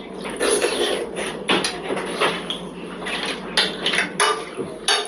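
Cutlery clinking and scraping against plates in a series of irregular sharp clicks while eating, the loudest clinks coming in the last couple of seconds.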